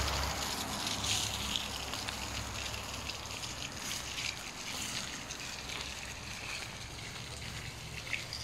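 Steady sound of running, splashing water, with a low rumble underneath.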